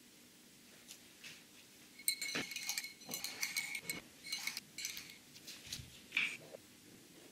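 Painting supplies being handled: a run of light clinks and knocks of small hard objects, starting about two seconds in, with a short ringing chink at the first one.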